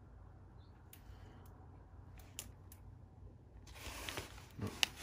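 Close handling noise: a few faint clicks, then from about three and a half seconds in a louder crackly rustle with sharp clicks, as fingers work the diamond painting canvas and its plastic cover film near the microphone.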